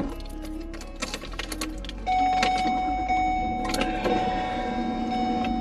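Car running, heard from inside the car, with a steady low rumble and some light clicks and jingling early on; a steady held tone with overtones comes in about two seconds in.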